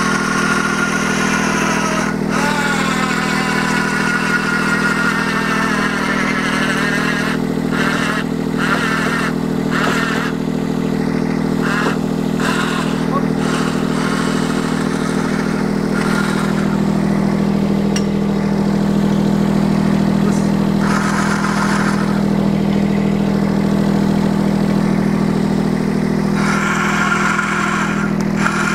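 Mini excavator engine running steadily while the small electric winch mounted on it is jogged on and off under load, its motor whining in repeated bursts as it pulls the cable tight.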